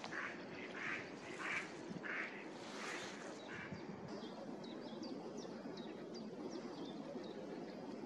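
Mallard quacking, a run of about five quacks in the first three seconds, followed by a series of short, high bird notes, about two a second, in the second half.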